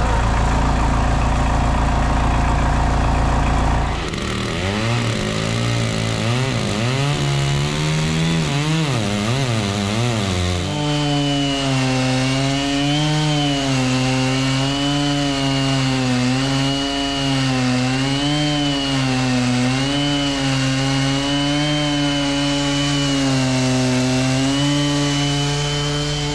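Portable band sawmill at work on a maple log. The engine runs steadily at first, then its pitch swings up and down for several seconds. From about ten seconds in it settles into a steady, slightly wavering note with a high whine above it as the band blade saws.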